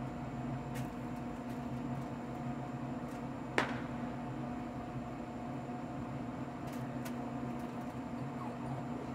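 Steady machine hum under a few light clicks and taps as fish fillets are laid on foil on a pellet grill's grate, with one sharper click about three and a half seconds in.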